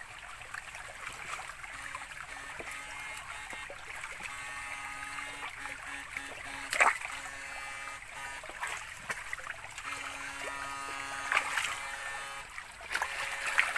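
Shallow stream water trickling and splashing around wading boots, with a steady buzzing hum from the electrofishing rig that comes on and cuts out in stretches as the poles are worked. A sharp splash about seven seconds in is the loudest sound.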